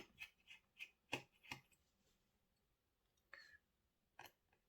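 Faint light clicks and taps of small screws and a small screwdriver being handled and set down on a work surface. Several come close together in the first second and a half, then a short scrape and a couple more clicks near the end.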